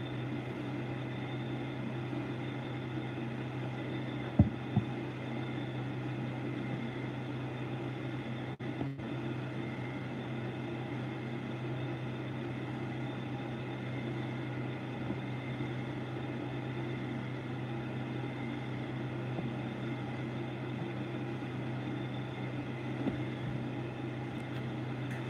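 Steady machine hum of the room's background noise, with two faint clicks a little over four seconds in.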